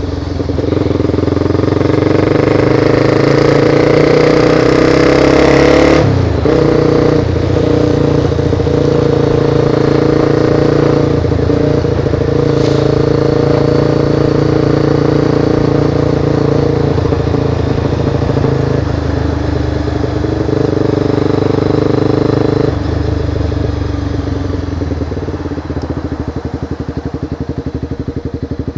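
Honda CBR sport motorcycle engine running under way, with a sudden change in note about six seconds in, like a gear change or roll-off. It then runs steadily, and in the last few seconds drops to a lower, pulsing putter as the bike slows for stopped traffic.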